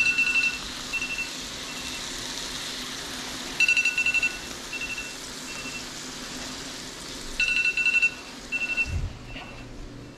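Cooking timer beeping in a repeating pattern, a longer beep followed by two short ones, about every three and a half seconds, over the steady sizzle of lake trout fillets frying in butter.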